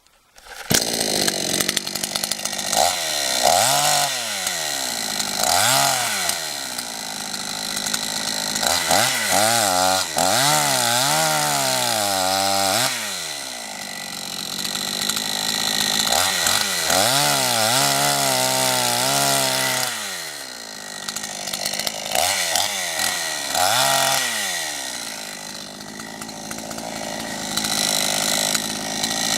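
CARVER chainsaw running, its engine pitch rising and falling again and again as the throttle is opened and eased off, with a lower steady running pitch between the swells. It comes in abruptly about half a second in.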